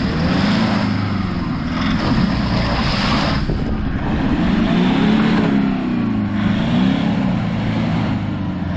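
Toyota Land Cruiser bogged in deep mud, its engine revving up and down over and over as the wheels spin in the muck without getting it out. Spinning tyres throw mud with a hiss that is strongest in the first few seconds.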